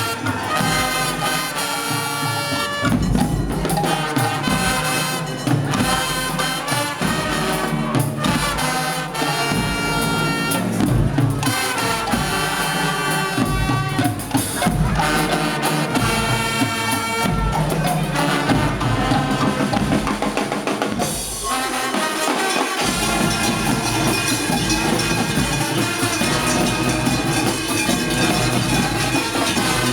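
Carnival marching band playing brass and drums. About two-thirds of the way through, the brass drops away and a dense, steady noise takes over at the same loudness.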